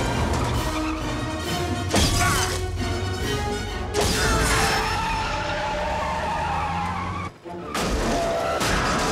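Action-film soundtrack: orchestral score over a speeding truck and crash effects, with a sharp impact about two seconds in and glass shattering at about four seconds as the windshield cracks. After a brief drop-out near the end comes the truck's metal scraping along a wall.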